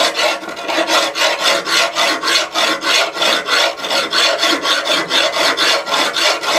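Heavy-duty horseshoe rasp scraping across a forged steel knife blade in rapid, regular back-and-forth strokes, hogging off metal to rough out the blade shape while the steel is still soft and unhardened.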